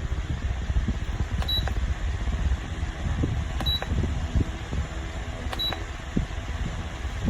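Aottop pedestal fan running with a steady low rush of air, and three short high beeps about two seconds apart, each just after a faint click: the fan's controls answering button presses.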